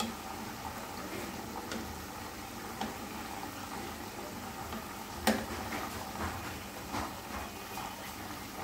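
Chicken pieces deep-frying in oil on low heat: a steady bubbling sizzle with scattered pops and crackles, and a sharp click about five seconds in.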